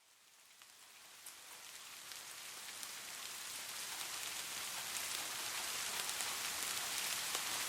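Steady rainfall with individual drops pattering on a surface, fading in from silence and growing louder over the first few seconds before settling to an even level.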